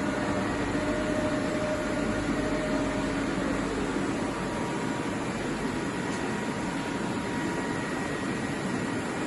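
TOS five-axis CNC horizontal boring machine running: a steady mechanical hum with several whining tones, the strongest of which fade out about three to four seconds in while fainter ones carry on.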